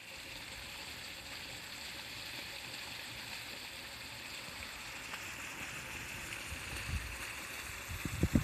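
Steady outdoor hiss, with low gusts of wind buffeting the microphone near the end.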